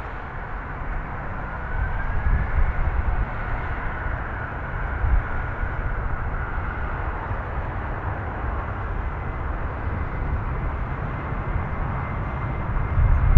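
Airbus A330-200 twin jet engines at takeoff power: a steady, rumbling roar with a faint whine that rises about a second in.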